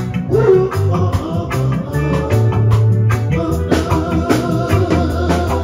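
Live band playing: a man sings into a microphone over electric guitars and keyboard, with drums keeping a steady beat under a sustained bass line.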